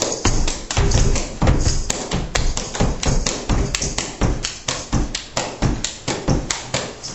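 Gumboot dancers slapping their rubber boots and stamping on the floor: a fast, rhythmic run of sharp slaps, several a second, mixed with heavier thuds.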